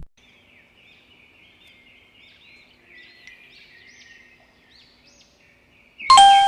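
Faint birdsong of repeated short chirps, then a brief loud pitched tone cuts in near the end.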